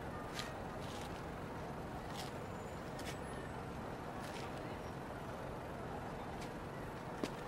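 Steady background hum of an outdoor evacuation camp at night, with a few faint clicks and taps now and then.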